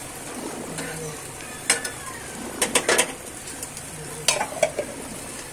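A metal spoon stirring masala Maggi noodles in an aluminium pan: soft scraping with sharp clinks against the pan, a quick cluster of them about halfway through and a couple more near the end. The noodles fry softly underneath.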